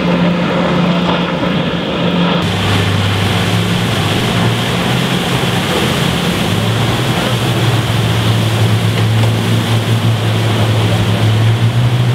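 Motorboat engines running at speed with water rushing and splashing. About two seconds in the sound changes abruptly to a deeper, steady engine drone over churning wake and wind on the microphone as a rigid-hulled inflatable boat runs alongside a larger ship.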